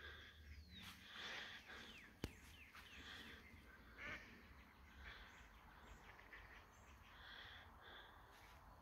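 Faint, repeated quacking of mallard ducks, with small birds chirping in the background. A single sharp click about two seconds in is the loudest sound.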